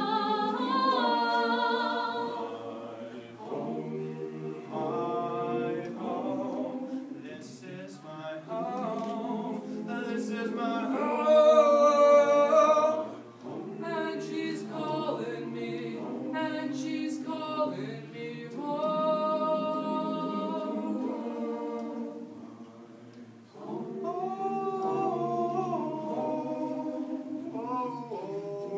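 Mixed choir of young men and women singing a cappella in held chords, phrase by phrase. The singing swells to its loudest about halfway through, then drops back briefly before the next phrase.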